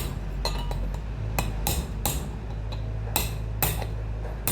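Hammer tapping a new ball bearing into its seat in an Electrolux washing machine, a series of light metallic strikes every half second or so, struck gently and unevenly.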